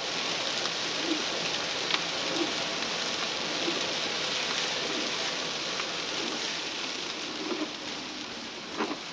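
Rain on the windscreen of a moving vehicle, heard from inside: a steady hiss with a few sharper ticks of drops.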